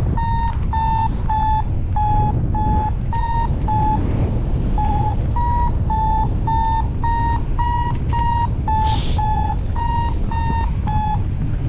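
Paragliding variometer beeping in short repeated tones, about three a second, its pitch shifting slightly from beep to beep, with a short break partway through: the climb tone that signals the glider is rising in lift. Steady wind rush on the microphone underneath.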